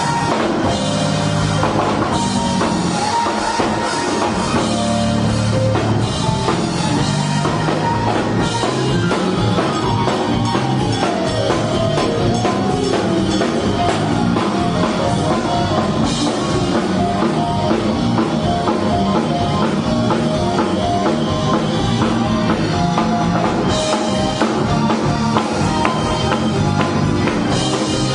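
Up-tempo gospel praise break played live on a drum kit, with keyboards and guitar over fast, busy drumming.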